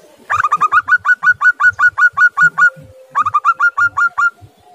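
Zebra dove (perkutut) calling: two bursts of rapid staccato notes, about six a second, the first lasting over two seconds and the second about a second.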